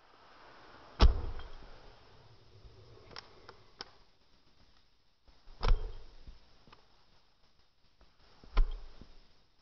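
Handling noise as a baby doll is moved about and laid down on a shag rug: three dull thumps, about a second in, near the middle and near the end, with soft rustling and a few light clicks between.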